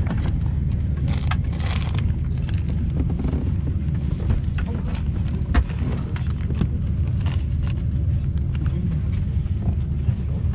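Steady low rumble inside a parked Boeing 737's cabin, with scattered clicks and knocks.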